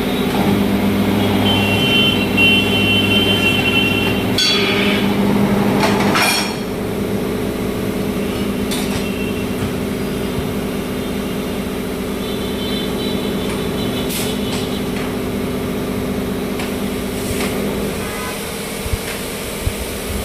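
A machine running with a steady hum that steps down in level about six seconds in, with a few sharp knocks and brief high squeals over it.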